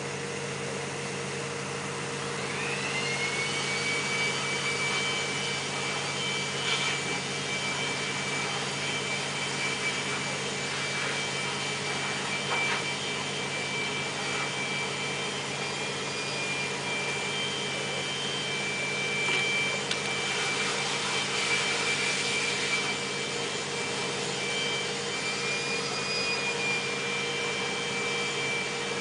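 A small electric machine starts about two seconds in: its whine rises quickly to a steady high pitch and runs on. Under it is the steady low hum of a ventilation blower feeding a yellow flexible duct, with a few faint knocks.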